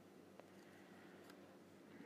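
Near silence: faint room tone with a steady low hum and a couple of faint ticks.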